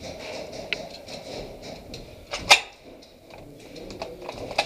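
Movement and handling noise: rustling with a few sharp clicks and knocks. The loudest and sharpest comes about two and a half seconds in.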